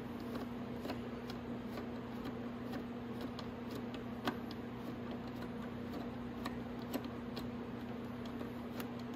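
Light, irregular ticking from a socket wrench loosening the last bolt on a motorcycle's headlight mount, over a steady background hum.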